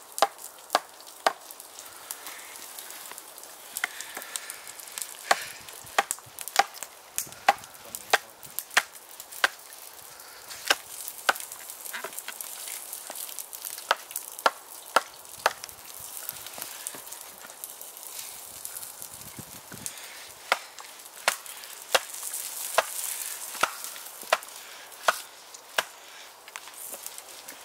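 Batoning: a short wooden baton knocks on the spine of an RJ Bushcraft custom knife, driving the blade down through an upright log to split it. The sharp wooden knocks come irregularly, about one to two a second.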